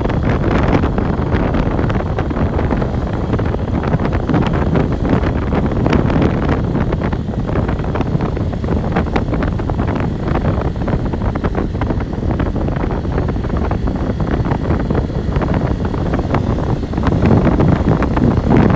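Motorcycle riding at speed on a rough dirt road: heavy wind buffeting the microphone over the engine, with many small knocks and rattles from the bumpy surface.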